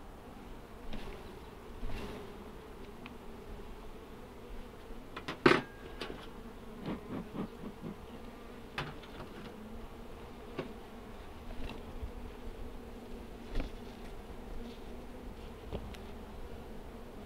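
Honeybees buzzing steadily around an open hive, a continuous low hum, with scattered clicks and knocks over it; the sharpest knock comes about five and a half seconds in.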